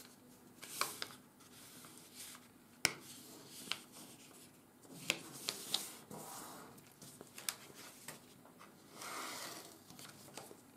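A sheet of plain 80 g/m² office paper being folded and creased by hand, faintly. Soft rustling and scraping, broken by scattered short sharp clicks and crackles as the fingers press the folds flat; the sharpest click comes about three seconds in.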